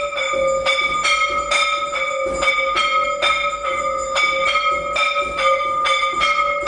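Temple bells rung rapidly and steadily for aarti, about three strokes a second, the metallic ring carrying on between strokes.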